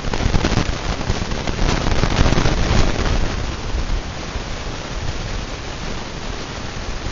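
Hunter Low Profile ceiling fan running, its moving air buffeting the microphone as a crackly, rumbling wind noise that is louder for the first three seconds and then settles lower.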